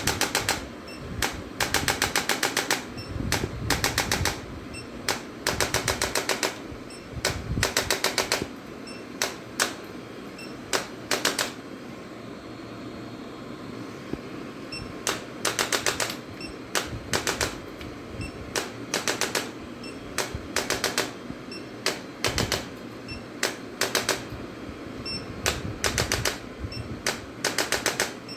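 Short bursts of very rapid mechanical clicking, each about half a second to a second long, repeated every second or two, with a lull of a couple of seconds partway through.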